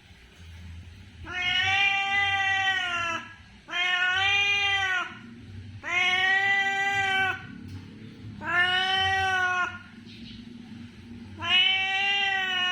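Domestic cat meowing to ask for food: five long, drawn-out meows, each one to two seconds, coming about every two and a half seconds.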